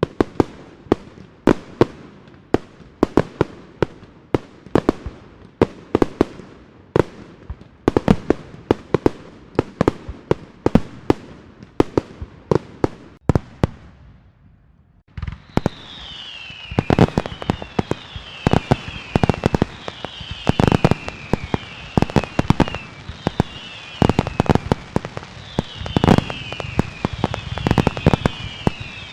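Fireworks and firecrackers going off: sharp bangs and cracks, one or two a second, for about the first half. After a short lull near the middle comes a denser stretch of bangs over a steady crackle, with repeated high whistles falling in pitch.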